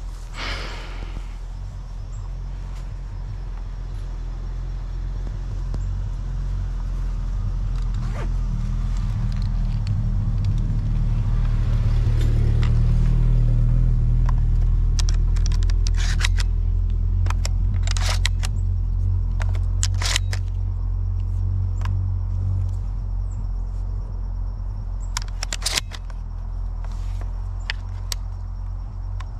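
A vehicle engine running with a deep rumble that swells louder through the middle and then eases off, with a scatter of sharp clicks and knocks in the second half.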